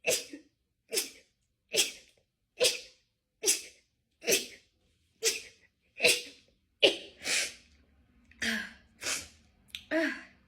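A fit of sneezing: about a dozen short, sharp sneezes in quick succession, a little under one a second, coming less evenly near the end.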